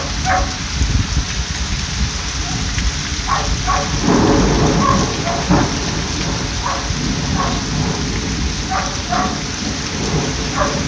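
Steady heavy rain during a thunderstorm, with a rumble of thunder swelling about four seconds in. A dog barks in short pairs every couple of seconds.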